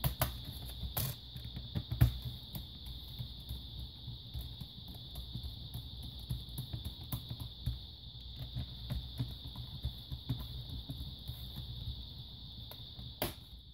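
Small plastic clicks and taps of hands handling an HP Pavilion DV6 laptop's bottom case and a screwdriver, with a few sharper knocks in the first two seconds and one near the end. A steady high-pitched hiss runs underneath.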